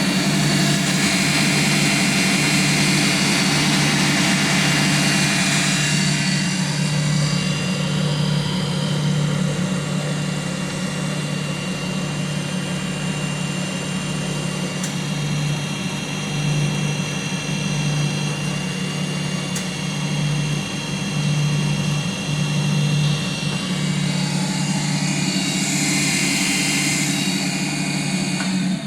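Indiel AVI 128 alternator with freshly replaced bearings spinning on a belt-driven test bench, a steady machine hum with a whine, and then shutting down abruptly at the very end.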